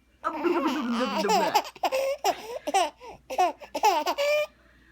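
A baby laughing in a run of short bursts, each with a quick up-and-down pitch, stopping shortly before the end.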